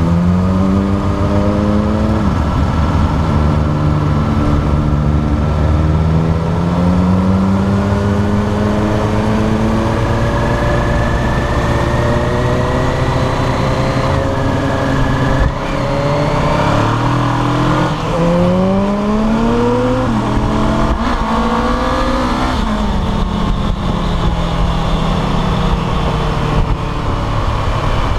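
Honda CBR500R's parallel-twin engine running under the rider, heard through the tank-mounted camera. The revs fall as the bike slows through the first half. After the middle they rise again in a run of short climbs broken by gear changes as it accelerates. Steady wind and road noise run underneath.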